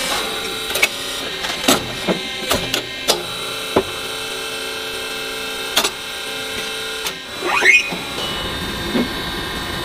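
Steady machine hum with sharp metallic knocks and clicks as a steel drill bit studded with tungsten carbide buttons is handled on a steel fixture. There is a short rising squeal about three-quarters of the way through.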